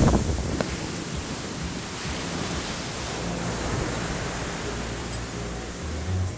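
Ocean surf washing up on a sandy beach: a steady rushing noise, louder at the very start and then settling.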